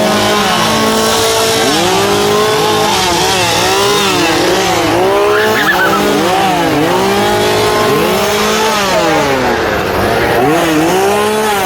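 Several chainsaw engines revving up and down over and over, overlapping at different pitches, the revs rising and falling about once a second.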